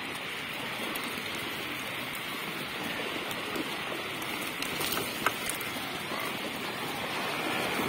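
A herd of saiga antelopes splashing as they swim across a river and scramble up the bank: a continuous rushing of churned water, with a sharp click about five seconds in.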